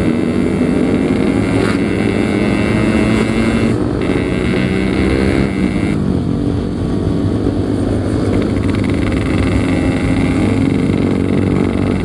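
Yamaha RX-King 135cc two-stroke motorcycle engine and exhaust running while riding, steady and loud, its pitch dropping briefly and picking up again about six seconds in.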